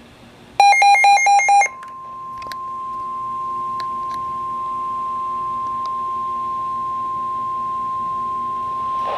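A Midland WR120 weather radio sounds an alert: a brief, loud run of rapid buzzy beeps for about a second, then the NOAA Weather Radio warning alarm tone, one steady pure tone near 1 kHz. This marks an incoming warning, here a flash flood warning, before the voice message.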